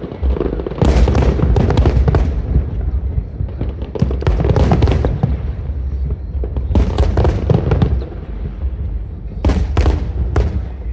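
Fireworks display: four volleys of sharp bangs and crackles, each about a second long, coming roughly every three seconds.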